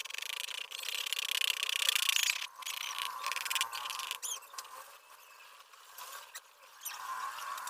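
Graphite pencil scratching on paper in quick back-and-forth shading strokes, loudest in the first two and a half seconds, then softer and more broken. Near the end, fingers rub across the paper to blend the shading.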